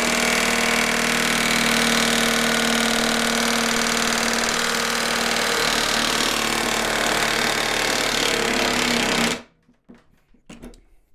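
Ingco 1,350 Nm 20V cordless impact wrench hammering continuously on an M20 nut in a steel test rig, then stopping suddenly a little over nine seconds in. The nut keeps being driven as the rig's threads strip.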